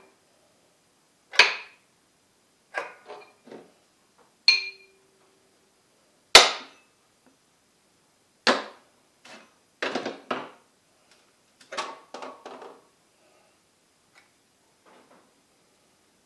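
A series of sharp metal-on-metal clacks as steel horseshoe magnets are handled against the iron pole pieces of a magnet charger and the steel plates around it. One clack about four and a half seconds in rings briefly, and the loudest comes about six seconds in. Only faint taps remain near the end.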